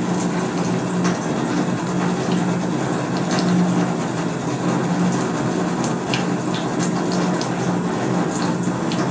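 Tap water running steadily from a faucet into a stainless-steel scrub sink, over a steady low hum, with faint scratches from a scrub brush being worked over the fingernails.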